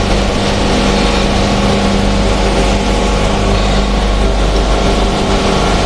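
Electric flipping drive of a 10-ton welding positioner (4 kW motor and gearbox) running steadily as the table tilts, a steady mechanical hum with several fixed tones.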